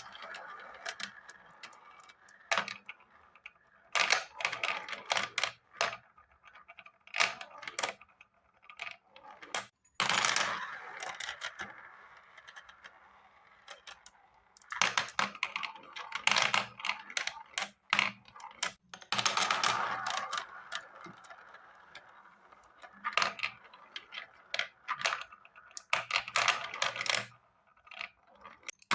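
Marbles rolling and clacking down a marble run: bursts of rapid clicks and clatter every few seconds, some with a rolling rush, separated by quieter stretches.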